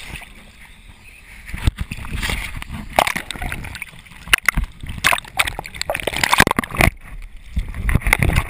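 Seawater sloshing and splashing over a camera held at the surface, the microphone dipping under and coming back up, with gurgling and irregular sharp splashes.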